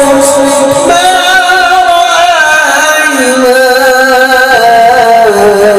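A male qari's solo voice singing Arabic devotional melody in long, wavering melismatic notes, amplified through a microphone and PA loudspeaker. The phrase steps up in pitch about a second in, then sinks step by step lower toward the end.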